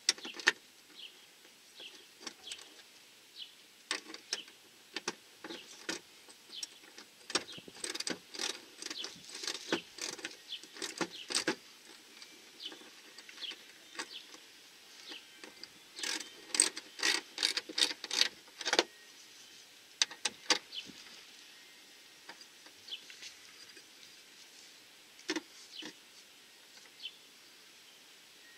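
Irregular sharp metallic clicks and taps, coming in quick runs of several a second and thinning out near the end, from hands working the bolt and washer of a metal TV wall-mount plate against wood paneling.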